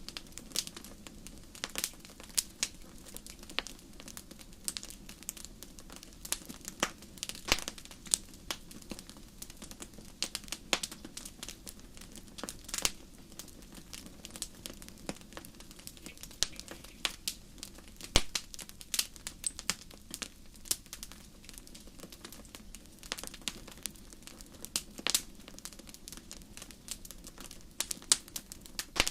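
Wood campfire crackling, with irregular sharp snaps and pops over a steady low rush of burning.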